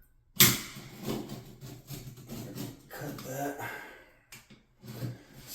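A sharp knock about half a second in, followed by irregular scraping and tapping of hand tools working on old, painted-over shower valve trim.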